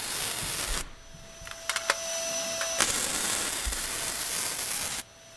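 MIG welding arc on steel tube, a steady hiss of the weld in two runs: it stops about a second in, with a few pops in the pause, then starts again a little before the three-second mark and cuts off shortly before the end.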